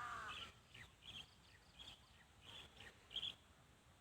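A crow caws once right at the start. Faint, short, high chirps from small birds follow, about one every half second.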